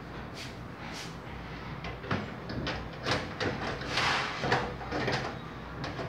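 Side panel of a VX Gaming PC tower being worked loose and slid off the case: a few light knocks, then a run of clanks with a brief scrape about four seconds in.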